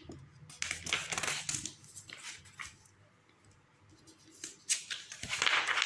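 A sheet of A4 paper rustling as it is folded in half and the crease is pressed flat by hand, in irregular bursts: a cluster in the first couple of seconds, a quiet stretch, then another burst near the end.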